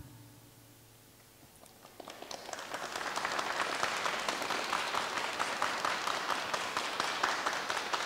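Applause from many people clapping, starting after a brief hush about two seconds in and keeping up steadily.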